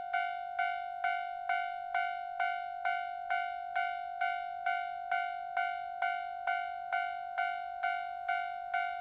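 Japanese railroad crossing warning bell ringing its 'kan-kan' alarm: one bell tone struck evenly a little over twice a second, each strike dying away quickly.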